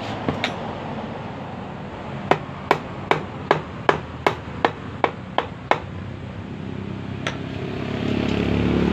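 A run of about ten sharp taps, roughly three a second, struck on a motorcycle engine's aluminium cylinder head as it is being fitted. Near the end a vehicle engine's rumble grows louder in the background.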